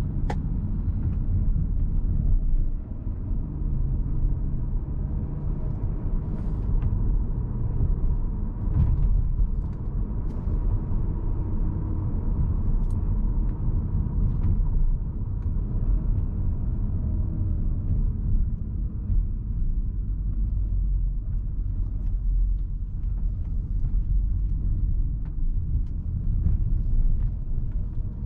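Cupra Formentor VZ5's 2.5-litre turbocharged five-cylinder engine running while the car is driven, mixed with low road rumble; the engine note drifts gently up and down.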